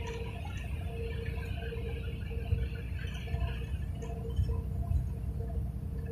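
Low road and engine rumble of a car driving along a highway, heard from inside the car, with a faint steady hum over it.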